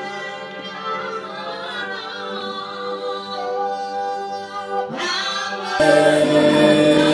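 Group of voices singing a worship song on long held notes, without words that can be made out. About six seconds in the sound suddenly grows louder and fuller.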